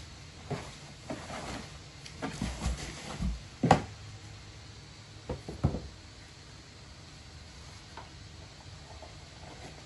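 A cat climbing into an empty cardboard box and moving about inside it: a run of hollow cardboard knocks and scrapes, the loudest a little over three and a half seconds in, then quiet from about six seconds on.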